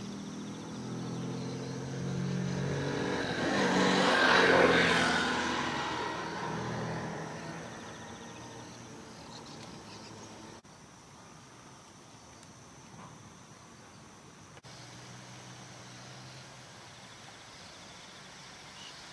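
A road vehicle passing by: engine and tyre noise swelling to a peak about four seconds in, then fading away, leaving a quiet steady outdoor background.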